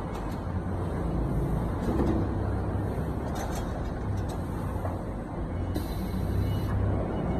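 CNC flat-bar pipe clamp bending machine running with a steady low hum while it bends steel strip into clamps, with a few short metal clicks and a hiss lasting about a second near the end.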